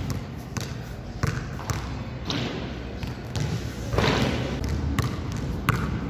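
A basketball being dribbled on a gym floor: sharp, irregular bounces. A louder, noisier rush comes about four seconds in.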